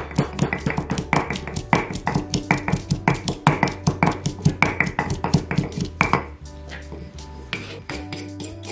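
Wooden pestle pounding garlic and cilantro in a clay mortar, about four dull thuds a second, stopping about six seconds in. Background music runs underneath.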